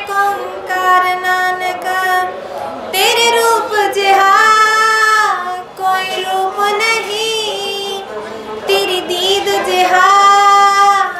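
A young woman singing a Sikh devotional song solo into a microphone. She holds long notes with slides in pitch between phrases.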